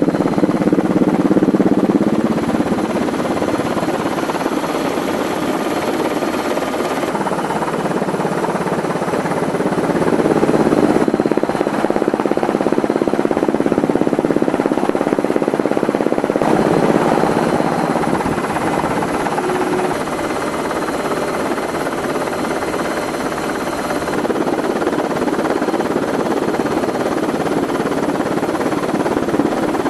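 Helicopter cabin noise, steady rotor and engine sound with no speech. Its tone changes abruptly several times where the footage cuts.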